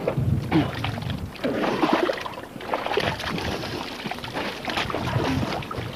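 People crawling and wading through a pit of muddy sewage water, with irregular splashing and sloshing.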